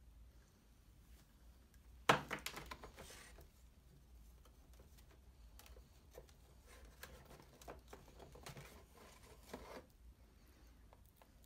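Rustling and crinkling as a reel of LED light strip and its packaging are handled, with a sharp burst about two seconds in, then softer scattered rustling and light clicks as the strip's wire connector is handled.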